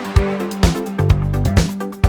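Jazz music with a steady beat: pitched notes over bass, with drum hits about twice a second.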